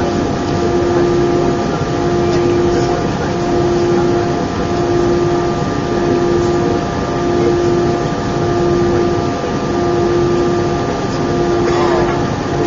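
Steady cabin noise of an Airbus A319 airliner: its jet engines and airflow make a constant rush with steady hums, and a low hum pulses on and off about once a second.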